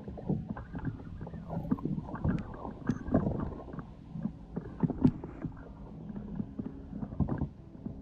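Hobie PA-14 pedal kayak under way on its MirageDrive: irregular knocks and clunks from the drive and hull, several a second, picked up by a camera mounted on the boat.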